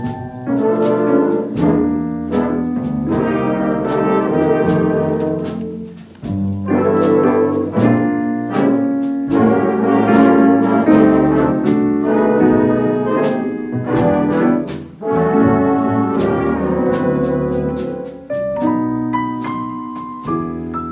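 Student jazz big band playing: saxophones, trumpets and trombones in full ensemble over electric guitar, with a steady beat of sharp hits. The phrases break off briefly about six and fifteen seconds in, and near the end the horns thin out to single held notes.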